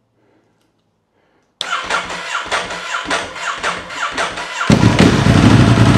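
Ducati Hypermotard 1100 S's air-cooled L-twin engine cranking on the starter motor in a rhythmic churn of about three beats a second, then catching about three seconds later and running loudly. It is the engine's first start after a full rebuild.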